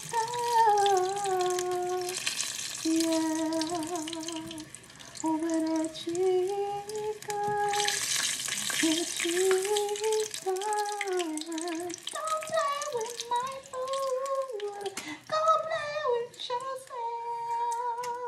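A high voice humming a wandering tune without words, over the steady sizzle of chicken pieces frying in hot oil; the sizzle swells for a couple of seconds about eight seconds in.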